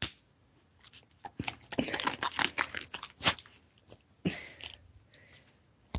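A husky crunching and chewing a treat, a run of quick crunches and clicks, mixed with the knock and rattle of a basket muzzle being handled and set down on carpet.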